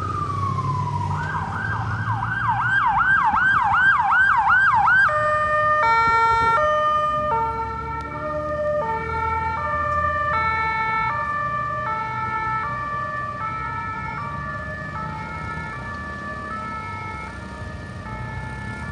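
Ambulance electronic siren: a slow wail falling away, then a fast yelp at about three sweeps a second, switching about five seconds in to an alternating hi-lo tone pattern that grows steadily fainter. A low traffic rumble runs underneath.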